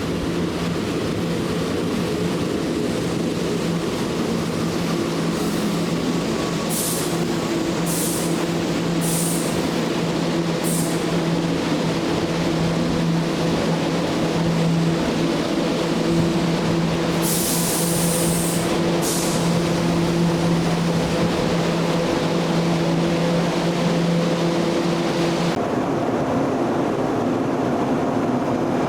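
Electric train standing with its equipment humming at a steady, unchanging pitch, broken by four short hisses of air in the first third and a longer hiss just past the middle. The hum cuts out abruptly near the end.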